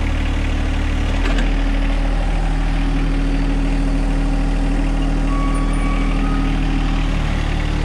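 John Deere 1025R compact tractor's three-cylinder diesel running steadily in neutral. About a second in, its note shifts to a different steady hum, which holds until near the end, while the hydraulic rear lift is being lowered.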